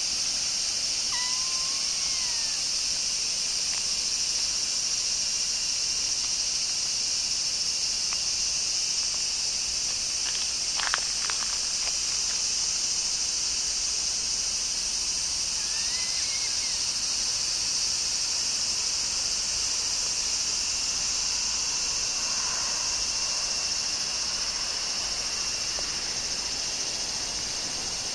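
Steady high-pitched insect chorus, with a short kitten mew about a second in and another around sixteen seconds in, and a brief patter of clicks near the middle.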